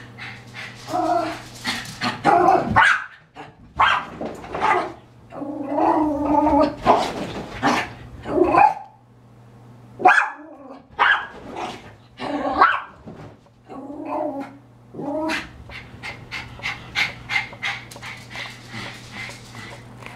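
A chihuahua barking and growling again and again in bursts, with a short lull about halfway and a quicker run of fainter barks near the end. It is the dog's angry territorial barking at the mail carrier at the door.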